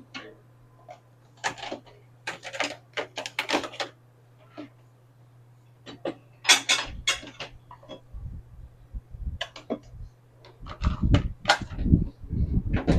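Kitchen handling sounds: a string of clicks, knocks and clatter of dishes and cupboard or dishwasher parts, heavier low thumps in the second half, over a steady low hum.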